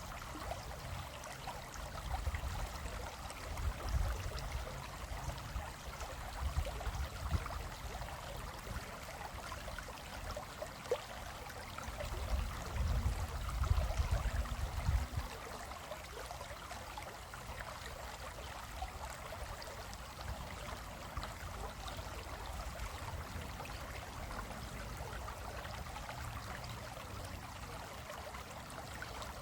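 Shallow stream running over rocks, a steady rushing, splashing water sound. A low rumble swells twice, a few seconds in and again around the middle.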